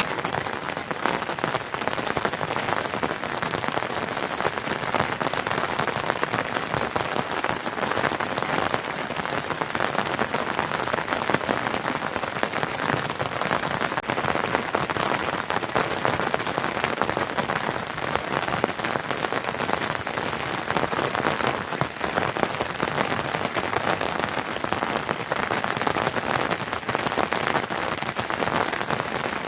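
Steady rain falling, a dense, even patter of drops hitting a surface.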